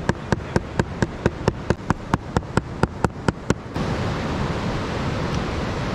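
A knife chopping bait on a wooden board, in quick even chops about four a second. They stop suddenly a little under four seconds in, leaving steady surf and wind noise.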